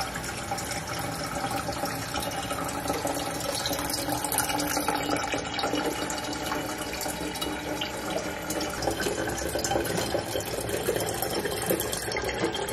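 Water running steadily from an Enagic LeveLuk K8 water ionizer's outlet hose into a kettle, filling it.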